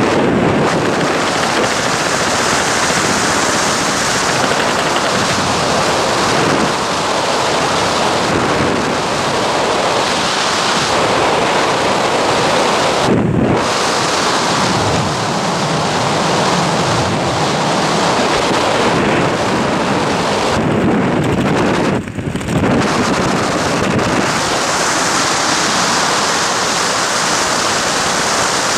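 Wind buffeting the camera microphone of a skydiver descending under an open parachute: a steady, loud rush of air that briefly dips twice, about 13 and 22 seconds in.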